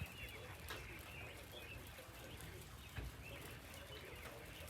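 Birds chirping in short, quick calls over a low steady rumble, with a soft thump about three seconds in.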